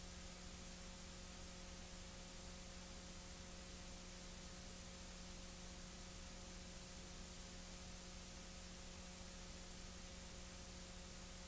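Steady hiss with a low electrical hum and nothing else on the track: the bare noise floor of an old video recording.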